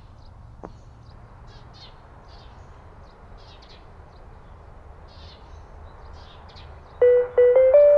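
Small birds chirping over a steady hiss, then about seven seconds in an outdoor public-address loudspeaker starts the morning chime, a quick run of bright electronic piano-like notes stepping upward. It is the TOA old-source time-signal chime of a municipal disaster-prevention radio loudspeaker, coming through an analog station.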